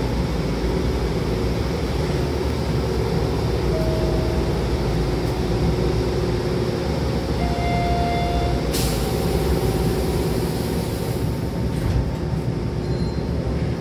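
Stopped commuter train with its onboard equipment humming steadily while the doors stand open. A short tone sounds about seven and a half seconds in, then a sudden hiss of air about nine seconds in as the pneumatic door engines act, and the doors slide shut with a thump around twelve seconds in.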